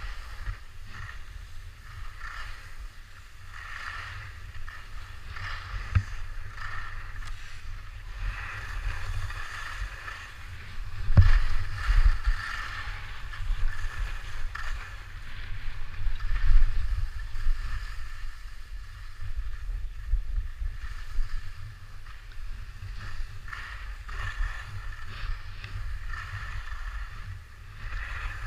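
Wind buffeting the camera microphone during a downhill ski run, with the pulsing hiss of skis carving and scraping over groomed snow. A couple of sharp knocks come about 6 and 11 seconds in.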